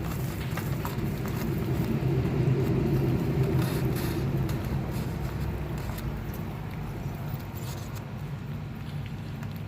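A pot of banga soup with freshly added vegetables on the stove: a low steady rumble, louder about two to four seconds in, with a few light clicks of a spoon against the pot as the vegetables are stirred in.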